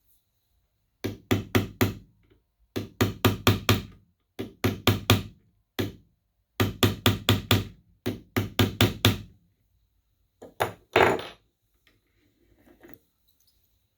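Hammer taps on a brass punch driving against the steel hook of a Smiths Everest PRS-25 watch clasp, bending the hook down to tighten it so the clasp stops popping open. The taps come in quick runs of four or five, repeated about six times, then a couple of heavier blows near the end.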